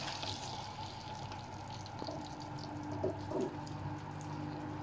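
Steel ladle scooping chicken pieces and curry gravy from a pan into a serving bowl: faint wet scraping and dripping, with a few soft knocks about two to three and a half seconds in, over a low steady hum.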